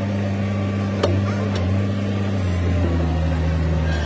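Hitachi excavator's diesel engine running steadily at idle. Its pitch steps down slightly about two-thirds of the way through, and there is a sharp knock about a second in.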